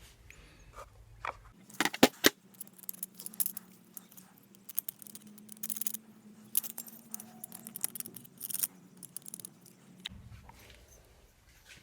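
Metal tools and small engine parts clinking and rattling as they are handled, in a run of sharp clinks with two loud ones about two seconds in.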